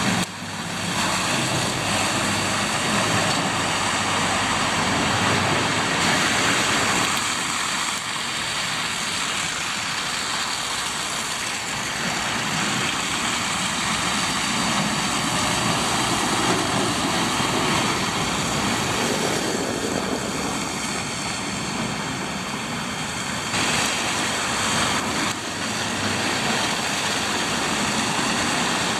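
Street traffic on a slushy road: diesel trucks and cars driving past, engines running and tyres hissing through wet slush, the sound shifting abruptly a couple of times.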